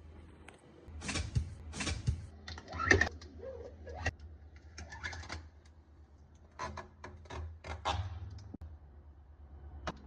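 Handling sounds from unboxing a new fridge: an irregular run of short taps, clicks and rustles over a faint steady low hum.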